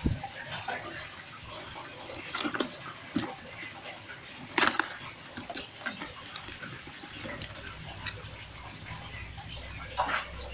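Wet slaps, knocks and small splashes of live-caught fish, red tilapia and dark fish, being handled in a plastic basin, with a few short sharp hits standing out, the loudest about halfway through.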